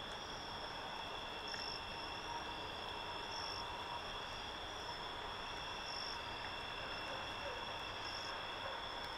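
Steady night-time chorus of crickets and other insects: several high trills held throughout, with a louder pulse about every two seconds, over a faint even hiss.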